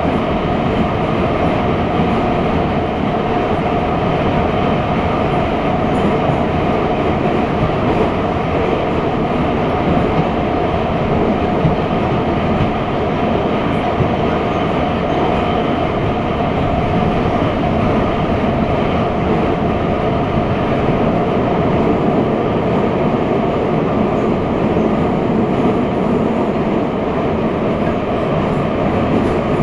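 Metro train running steadily through an underground tunnel, heard from inside the carriage as a continuous loud rumble and rush of wheels and motors with no break.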